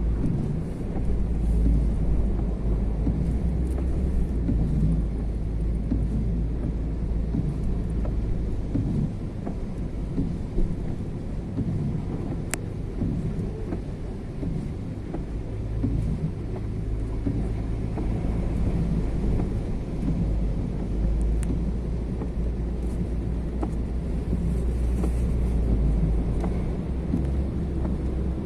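A car driving slowly through a flooded street, heard from inside the cabin. There is a continuous low rumble of the engine and of floodwater washing against the wheels and body, swelling and easing as it goes.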